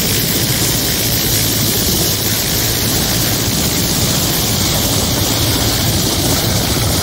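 Mil Mi-17 helicopter's turbines and main rotor running steadily on the ground: a constant low hum under a loud hiss, with wind noise from the rotor wash on the microphone.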